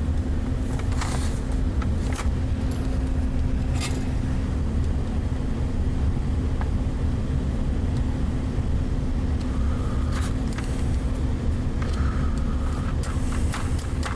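Steady low machine hum, like a fan or motor running, with a few light clicks and scrapes in the first few seconds.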